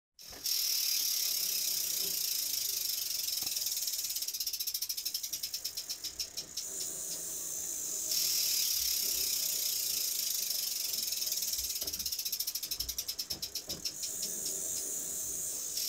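Bicycle freehub ticking as a wheel spins freely: a fast high buzz that twice slows down into separate clicks spreading further apart.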